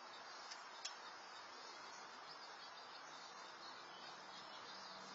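Near silence: the steady, even hiss of an outdoor security camera's microphone, with two faint clicks about half a second and a second in.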